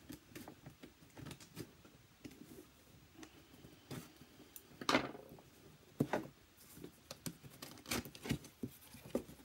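Scissors cutting the packing tape on a cardboard box, with irregular snips, scrapes and cardboard rustles. A few sharper clicks come about halfway through and near the end.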